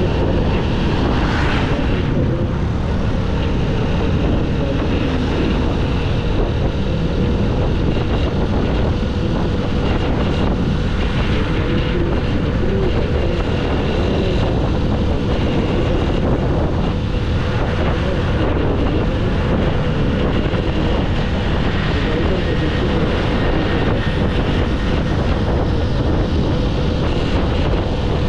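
Honda CG 125's single-cylinder four-stroke engine running steadily while the motorcycle is ridden, with wind buffeting the microphone.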